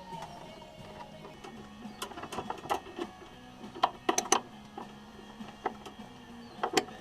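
Scattered sharp clicks and knocks, a quick cluster about four seconds in and a pair near the end, over faint background music.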